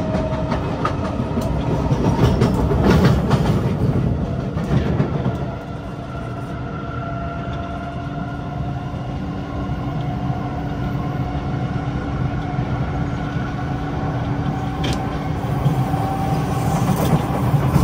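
Kawasaki C751B MRT train heard from inside the car while running between stations: a steady rumble of wheels on the track with a constant hum, and a faint whine slowly rising in pitch. Some rail clatter comes in the first few seconds.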